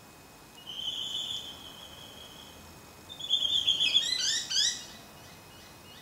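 Pacific Baza calling: a long, steady, high whistle starting about half a second in, then a second whistle that breaks into a quick series of short falling notes.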